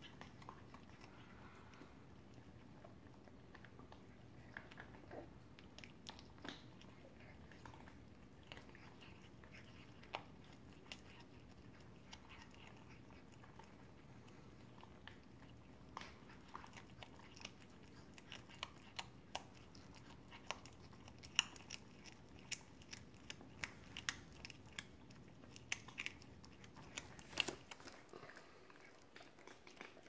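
A cat chewing a small bird: scattered sharp crunches and bites, sparse at first and coming more often and louder from about halfway in.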